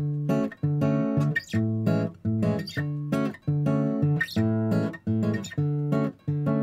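Background music: strummed acoustic guitar chords in a steady rhythm, about two strums a second.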